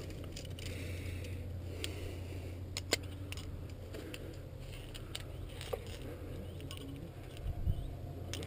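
Climbing hardware (carabiners and quickdraws on a climber's harness) clinking in scattered sharp clicks, with scraping and rustling of hands, clothing and shoes on rock. Underneath is a steady low hum, and a dull thump comes shortly before the end.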